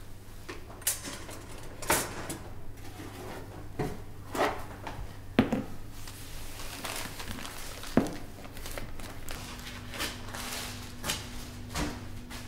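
Scattered short knocks, clicks and rustles of someone rummaging under a cloth-skirted steel kitchen bench, over a faint steady hum.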